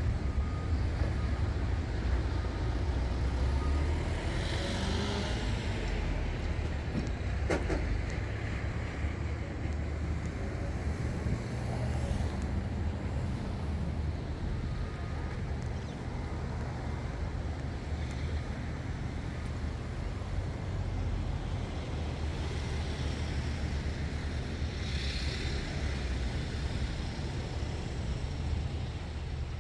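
Steady low engine rumble with a faint hiss of moving air above it.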